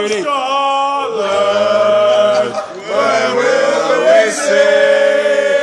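A group of men chanting and singing together in unison, drawn-out notes sung in two long phrases with a short breath between them.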